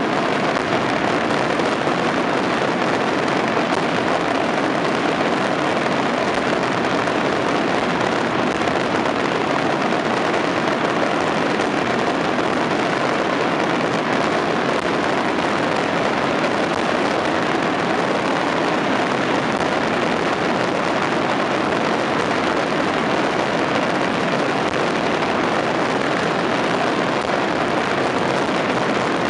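A dense daytime firework barrage fired from the ground, its bangs so many and so close together that they merge into one steady, unbroken crackling noise.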